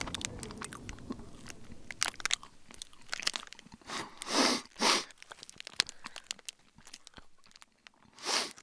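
A person eating noisily: wet chewing and smacking with many small crackling clicks, and a few louder noisy bursts about four and five seconds in and again near the end.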